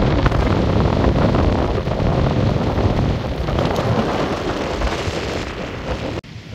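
Wind buffeting the microphone: a loud, steady, deep rushing noise that cuts off suddenly near the end.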